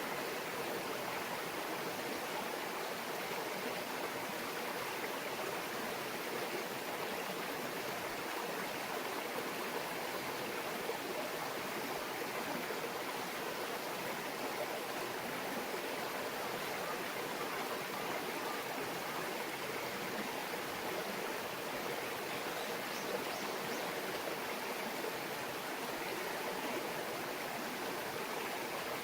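A small mountain stream babbling steadily over rocks, an even rush of water.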